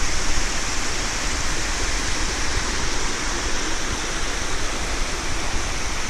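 Waterfall cascading down a rock face: a loud, steady rush of water.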